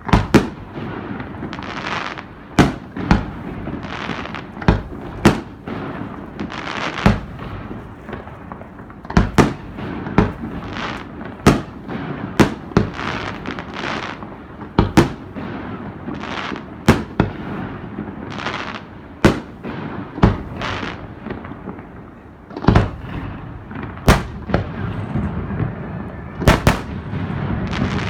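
Aerial fireworks shells launching and bursting overhead in quick succession: sharp bangs about one or two a second, with a steady hiss between them. The bursts come thicker and heavier in the last few seconds.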